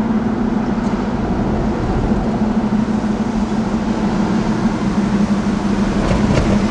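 Steady drone of a car driving along a city street, heard from inside the cabin: engine and road noise with a constant low hum.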